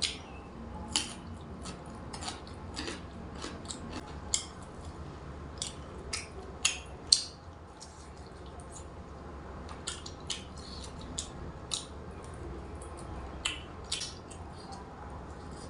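Close-up chewing and eating sounds: irregular sharp crunches, smacks and wet mouth noises a few times a second, the loudest about seven seconds in.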